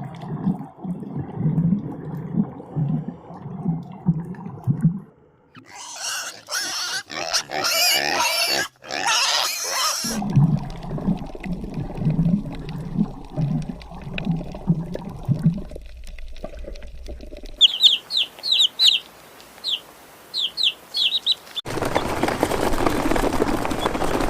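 A run of animal calls: short low calls repeating about twice a second, a loud harsh stretch, more of the same low calls, then a string of short high chirps and a steady harsh noise near the end.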